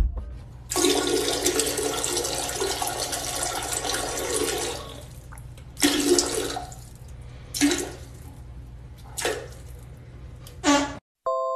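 Water rushing in one long gush lasting about four seconds, then four short gushes about a second and a half apart.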